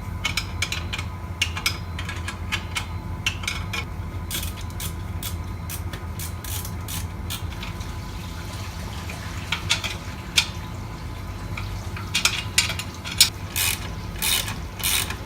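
Ratchet wrench clicking in short, irregular runs while tightening the motorcycle's exhaust port nuts, over a steady low hum.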